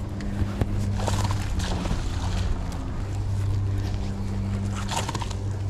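A steady low hum, with rustling over it and a couple of sharp clicks in the first second.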